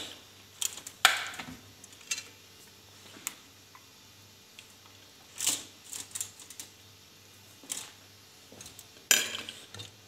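A metal spoon scraping and clicking against a plate as mayonnaise is spread over a thin flatbread wrap, with scattered light clicks and a few louder knocks about a second in, midway and near the end.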